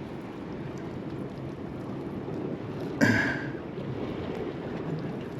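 Steady wind and surf noise by the sea, with wind buffeting the microphone. There is a single short, sharp sound about three seconds in.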